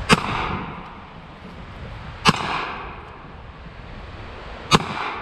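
Three shots from a Smith & Wesson Governor revolver, about two and a half seconds apart, each followed by a short echoing tail.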